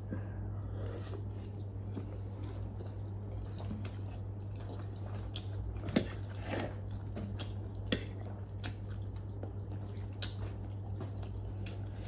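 Close-up eating sounds of spicy instant noodles: chewing and biting with scattered small wet clicks, the sharpest about six and eight seconds in, over a steady low hum.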